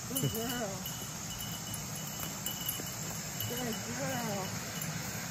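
Insects chirping steadily in a high, broken trill, over the rustle of footsteps through tall weeds. Two short, faint voice-like sounds come near the start and again about four seconds in.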